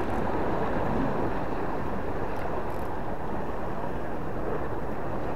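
Steady wind buffeting the microphone over the wash of sea surf, an even noise with no distinct events.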